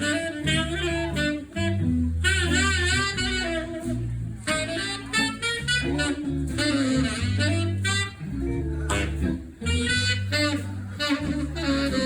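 Instrumental break of a jazzy jump-blues song: a saxophone plays a lead line with wide vibrato over bass and guitar backing.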